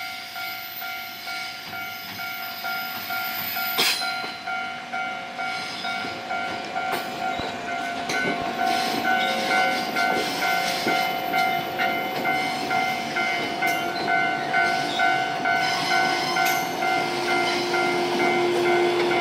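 Japanese railway level-crossing warning bell ringing in a steady rhythmic pulse, while an approaching train's rumble grows louder underneath. A sharp click sounds about four seconds in, and a steady lower tone joins near the end.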